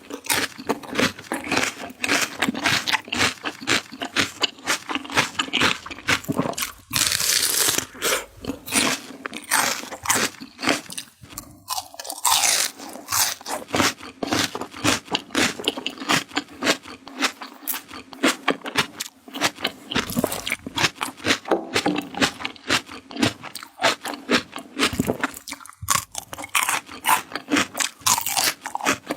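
Close-miked crunching and chewing of crisp raw vegetables, a rapid run of loud crackly bites and chews.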